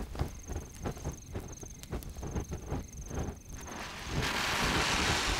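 Scattered knocks and thuds for the first few seconds. Then, about four seconds in, the lit fuse of an iron-sand cannon, an old muzzle-loading black-powder gun, starts to fizz and spark with a hiss that grows louder.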